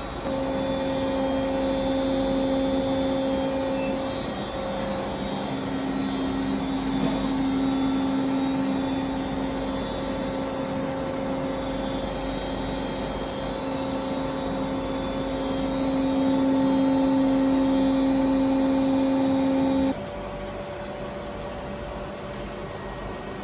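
Electric machining machine running steadily with a constant hum and whine, then switched off about twenty seconds in, leaving a lower background hum.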